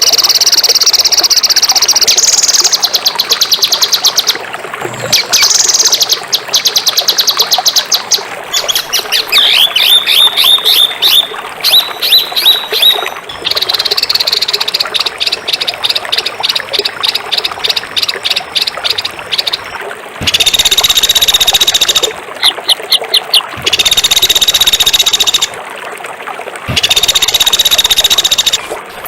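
Songbird song from a masteran tutor recording: loud, rapid strings of high repeated notes and falling chirps, broken by three harsh buzzy phrases of about two seconds each in the second half.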